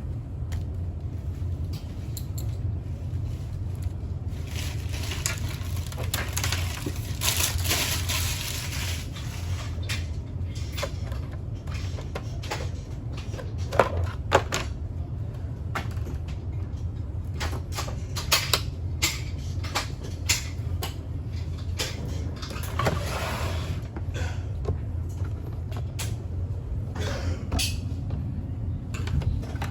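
Irregular clicks, knocks and scraping as coffee-machine parts and hand tools are handled during a repair, over a steady low hum.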